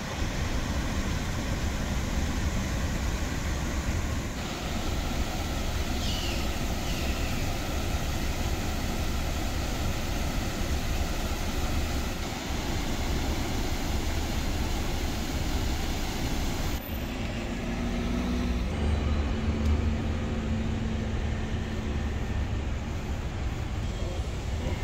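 Steady outdoor road-traffic noise, a continuous low rumble of passing vehicles. A steady low hum joins it about two-thirds of the way through.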